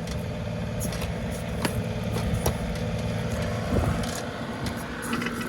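Compact John Deere 2038R tractor's diesel engine running steadily while its backhoe digs at a tree stump. Several sharp cracks and scrapes break over the engine sound.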